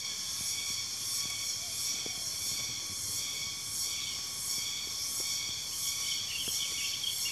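A steady, high-pitched insect chorus that pulses evenly, with a few faint clicks.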